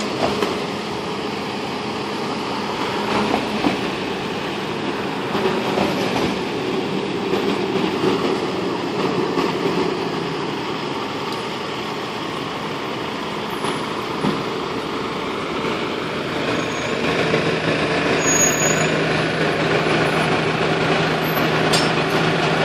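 Street traffic, then a fire engine's diesel engine growing louder as the truck drives up and pulls in close, running steadily in the last few seconds.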